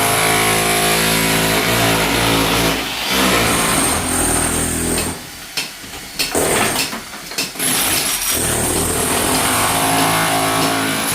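A motor running loud and steady with a clear pitch, rising and easing a little, cutting out briefly a few times and picking up again.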